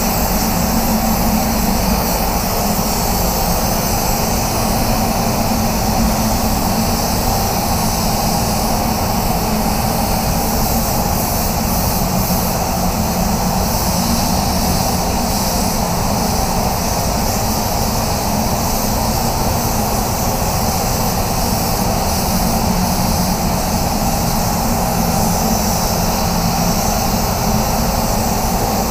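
Steady, unbroken rush of air in a paint spray booth: the booth's air flow and a spray gun's compressed-air hiss.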